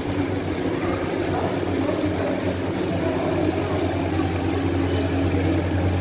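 Steady low electric hum of aquarium equipment, the pumps and filters running on the fish tanks.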